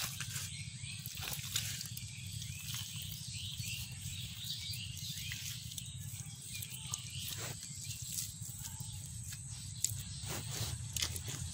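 Wet mud squelching and slapping as hands scoop it up and pack it around a buried clay pot, with a few short wet slaps, over a steady low hum.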